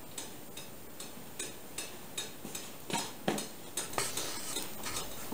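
Wooden pieces being handled and set down in a workshop: a few clattering knocks with a short ring about three seconds in, then lighter clinks. A steady light ticking, about two or three clicks a second, runs underneath.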